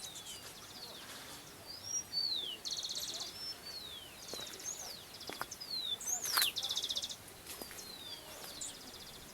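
Wild birds calling: repeated high whistled notes that slide downward, with short fast trills between them, about a dozen calls over the stretch.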